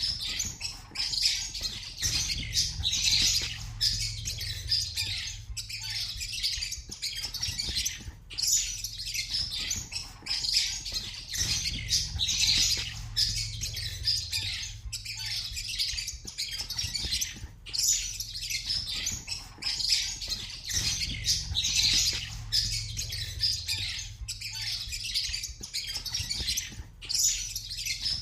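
Many small pet birds chirping and squawking at once in a dense, unbroken chatter, over a steady low hum.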